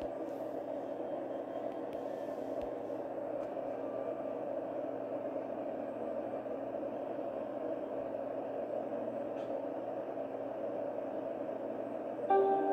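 Steady electrical static with a low hum on the recording, and a short electronic beep near the end.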